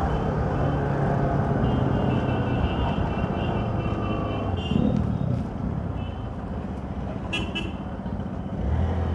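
Motorcycle engine running steadily while riding through street traffic. A vehicle horn sounds for about three seconds, starting about two seconds in, and there is another short toot near the end.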